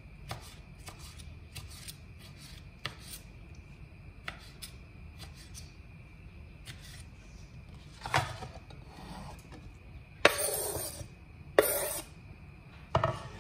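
Kitchen knife tapping on a bamboo cutting board in light, irregular cuts while dicing tomatoes. In the last few seconds come several louder scrapes, the blade sweeping across the board to push the diced tomato off into a bowl.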